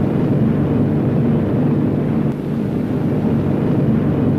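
Aircraft engines running steadily, a loud continuous drone.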